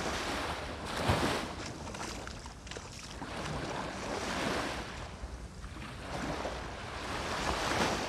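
Small sea waves washing up onto sand at the water's edge, each wash swelling and fading, the loudest about a second in and others around four and seven and a half seconds. Wind rumbles on the microphone underneath.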